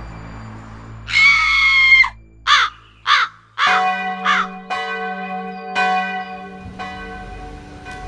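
A crow cawing about five times, the first caw long and the rest short. About halfway through, a church bell starts tolling, struck roughly once a second with each stroke ringing on.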